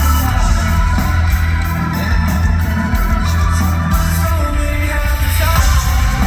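Live rock band playing loudly: heavy bass, pounding drums and a singer's voice over the band.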